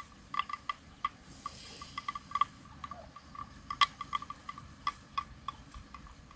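A grazing cow: a run of irregular short clicks and clonks, all at one steady pitch, the loudest about four seconds in, over a faint low rumble.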